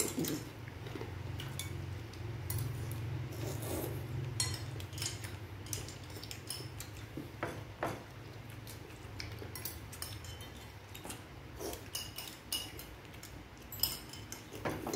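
Metal spoons clinking and scraping against porcelain bowls as people eat, in scattered irregular clicks, over a low steady hum.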